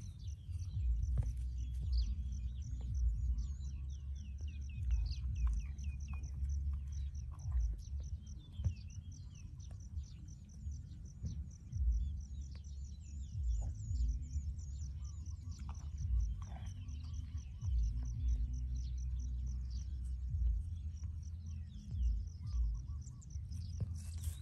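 Low gusty rumble of wind on the microphone, with birds chirping throughout. Scattered soft crackles come from a calf tearing and chewing dry grass as it grazes.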